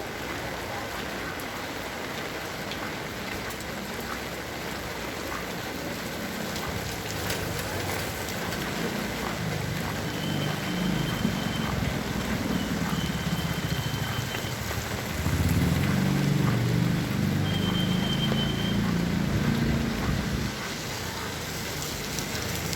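Heavy rain falling steadily, with a motor vehicle's engine rumbling past that grows louder from about the middle and fades near the end.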